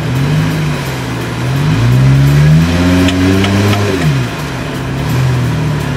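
Jeep Wrangler engine revving under load as it crawls up a rutted dirt trail: a short rise in revs, then a longer climb that peaks two to three seconds in and drops away at about four seconds, followed by a smaller blip.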